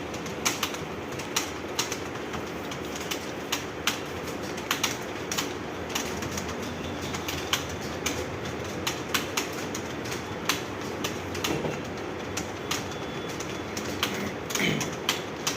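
Computer keyboards clattering under fast typing: irregular key clicks, several a second, over a steady background hiss.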